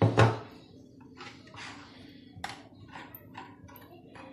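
A loud thud at the very start, then a spoon stirring thick chocolate custard in a pot, scraping in short strokes about twice a second.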